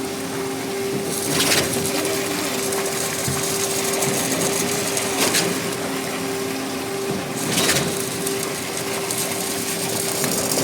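Truck-mounted concrete boom pump at work: a steady hum of the engine and hydraulics, with three sharp knocks a few seconds apart, the pump's pistons changing stroke as it pushes concrete up the boom line.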